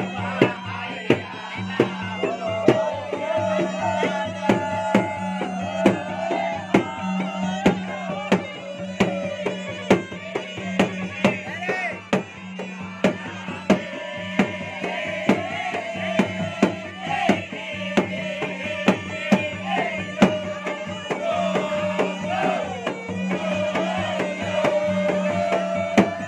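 Makassarese gendang (ganrang) drums beating a fast, irregular pattern of sharp strokes, with a puik-puik, a small double-reed shawm, playing an unbroken wavering, ornamented melody over a steady low drone.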